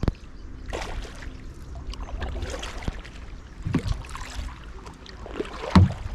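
Kayak paddle strokes splashing in the sea, a stroke about every second and a half, over a low steady rumble.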